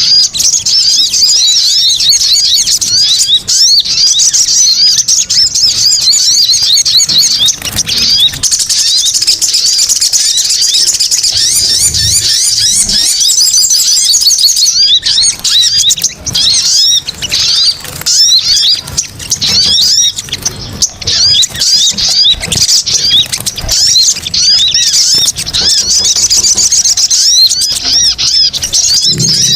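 Bird-lure recording of spiderhunter (sogon) calls: a dense, noisy stream of rapid, high chirps and twitters overlapping one another, as from several birds calling at once.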